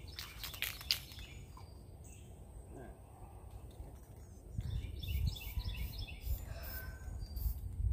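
Short hisses from an aerosol can of rust-reformer primer being sprayed, loudest in the first second, with birds chirping behind. A low rumble comes in about halfway through.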